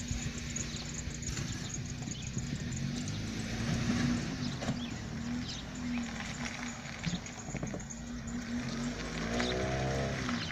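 Background music carried by a low, repeating bass line, with scattered short clicks over it.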